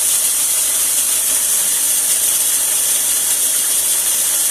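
Small electric food processor running steadily, its blade grinding corn flakes into crumbs with a loud, even, hissy whir.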